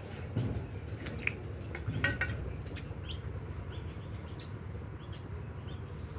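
Short bird chirps and quick falling calls, scattered through with a cluster about two seconds in, over a steady low rumble.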